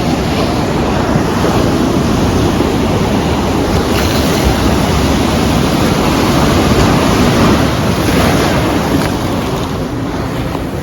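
Ocean surf washing against the jetty rocks in a steady loud rush, with wind buffeting the microphone.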